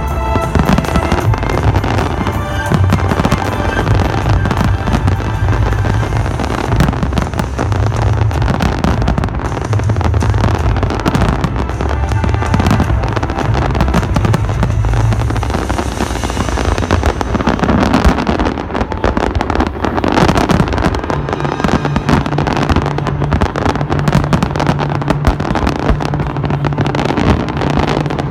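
Fireworks display: a dense, continuous run of bangs and crackling from aerial shells, with music playing alongside. A steady low drone comes in about two-thirds of the way through.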